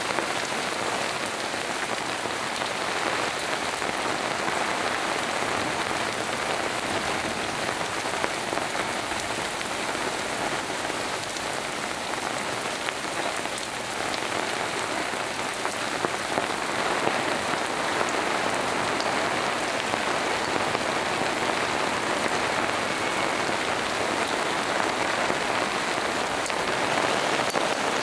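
Heavy thunderstorm rain pouring steadily onto bare earth and puddles, a dense, even hiss with close drops ticking through it.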